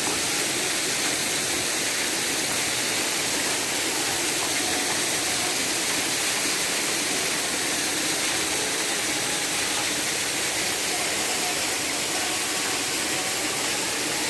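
Steady rush of falling and splashing water from a waterfall, an even hiss that holds at one level throughout.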